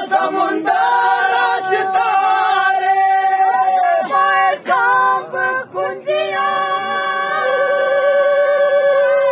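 Men singing a Dogri folk song unaccompanied, holding long notes, with a wavering vibrato on a held note near the end.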